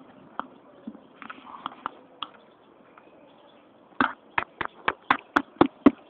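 A few scattered sharp taps, then from about four seconds in a quick run of sharp taps, about four or five a second: a small green parrot pecking with its beak right at the microphone.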